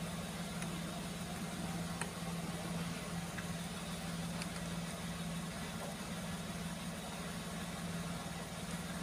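A steady low electrical hum, with a few faint clicks about half a second, two seconds and three and a half seconds in.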